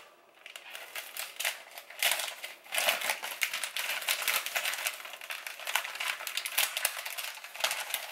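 Packet of nori seaweed sheets crinkling as it is handled and opened. It starts about half a second in and comes in irregular crackly bursts.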